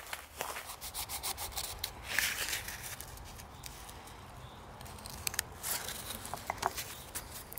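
Footsteps crunching in dry fallen leaves at first, then a knife blade scraping and scoring a piece of birch bark against a wooden board, with a few light clicks.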